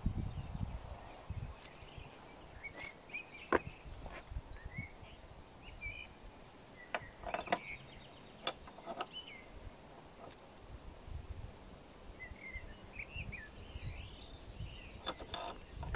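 Scattered light clicks and knocks of hands working on a mitre saw's metal parts, with small birds chirping in the background.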